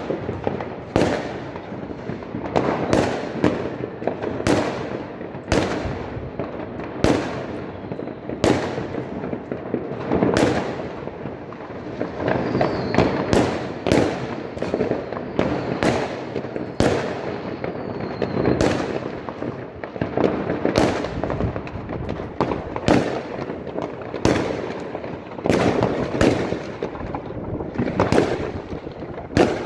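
New Year's Eve fireworks: a continuous barrage of sharp bangs from rockets and firecrackers, about one a second, over a steady background of crackling and rumbling from many more distant bursts.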